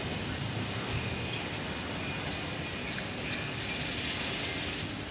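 Steady outdoor ambience with a thin high hum. A high, finely pulsing buzz swells for about a second near the end.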